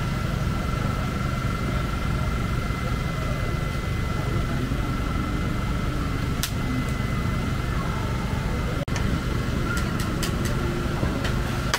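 Steady low machine hum with a constant high whine running through it, and a few sharp clicks near the end.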